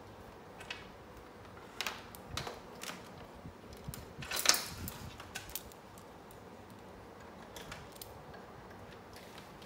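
Scattered clicks, knocks and light rattles of cables and plugs being handled and connected at an AV receiver, irregular, with the loudest knock about four and a half seconds in.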